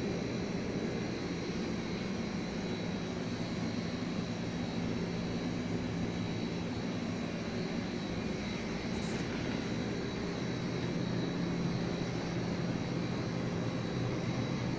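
A steady mechanical drone with a faint high whine held throughout.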